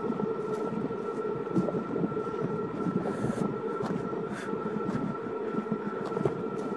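A steady rumbling running noise with a constant high whine and scattered faint clicks, like a vehicle or train in motion.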